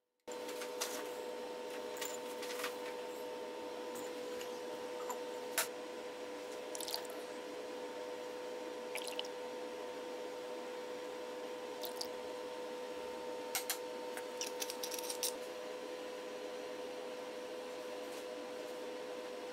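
Liquid sauces being poured and spooned into a small glass bowl: scattered small splashes, drips and light clinks, with a cluster of them about two-thirds of the way through, over a steady hum.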